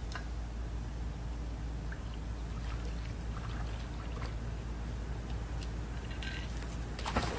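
Faint splashing and lapping of pool water as a dog's muzzle dips in after a floating toy, over a steady low rumble.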